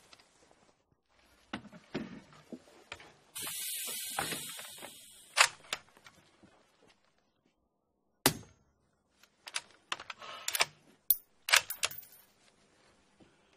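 Suppressed Bora 12 bolt-action sniper rifle: a string of sharp cracks and metallic clacks from muffled shots and the bolt being worked, the reports hardly louder than the mechanism. A hiss runs for about a second and a half, starting about three seconds in.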